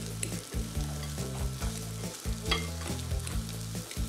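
A metal fork crushing boiled potatoes in a stainless pan of hot olive oil: the fork scrapes and clicks against the pan bottom while the oil sizzles.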